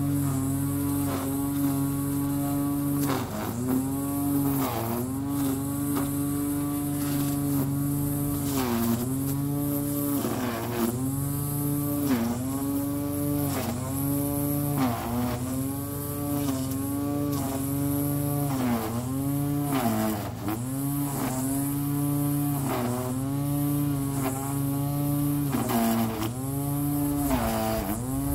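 Small electric motor of a hand-held garden tool running steadily, its pitch dipping briefly every one to two seconds as it takes load.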